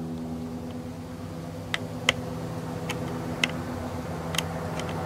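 Light clicks of a small screwdriver turning the trigger adjustment screw of a Benjamin Trail Nitro Piston 2 air rifle: about five sharp ticks a second or so apart, the loudest about two seconds in. A steady low hum runs underneath.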